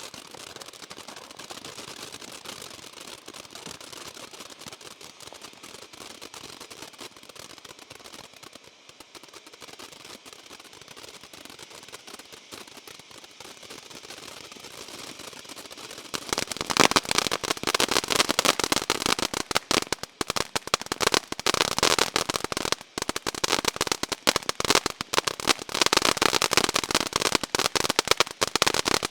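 Firework ground fountain spraying sparks with a steady hiss, then a little over halfway through it breaks into loud, dense crackling.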